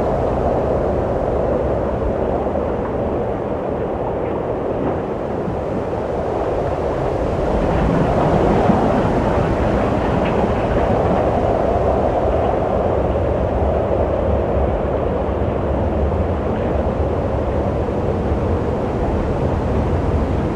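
Wind blowing steadily as a low, even rush, swelling into a stronger gust about eight seconds in and easing back.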